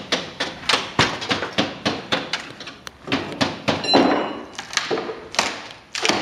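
Quick, regular knocking blows, about three a second, typical of hammering during the removal of old window frames. About four seconds in there is a louder clatter with a brief metallic ring.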